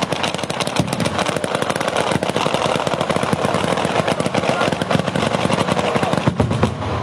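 Ground-level fireworks going off in a dense, rapid string of firecracker bangs, crackling without a break, like machine-gun fire.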